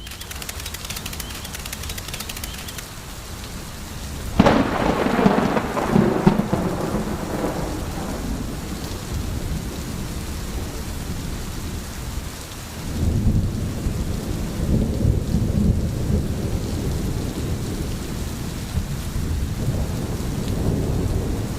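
Thunderstorm: steady rain, with a sudden clap of thunder about four seconds in that rolls away over several seconds, and a second low rumble of thunder about halfway through.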